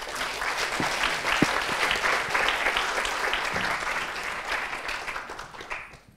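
Audience applauding, a dense patter of many hands clapping that tapers off near the end.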